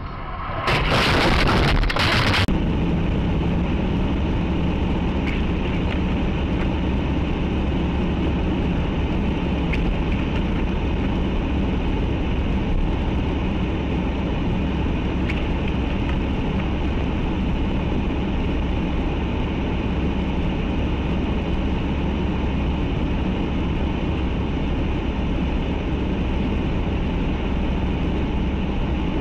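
A car's engine and tyre noise, heard from inside the cabin as it drives on a snowy road, a steady low drone. About a second in there is a loud, harsh burst of noise lasting about two seconds.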